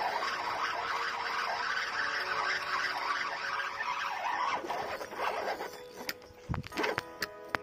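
Spinning fishing reel worked right beside the microphone, a rasping whir mixed with hand rubbing, then a few sharp clicks and a short buzz near the end.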